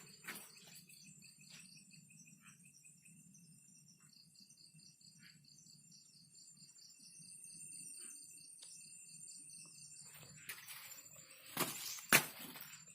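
Night insects, crickets among them, chirping in a steady fast-pulsing high trill over a low rumble, with a few sharp knocks and rustles near the end.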